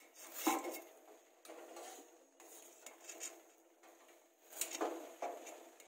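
Steel ladle clinking and scraping against a steel pot and a stainless steel plate as boiled cauliflower florets are scooped out onto the plate, with the loudest clanks about half a second in and again near the end.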